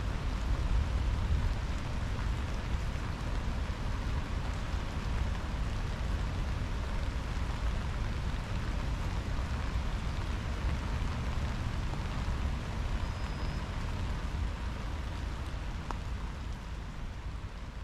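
Steady rain falling and pattering, an even hiss with a low rumble beneath, slowly fading out near the end.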